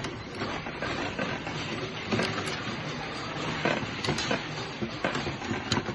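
Chain-link fence weaving machine running: a steady mechanical clatter with irregular sharp metallic clicks and knocks.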